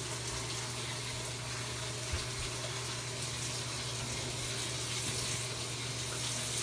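Water running steadily into a bathtub from the tap or shower.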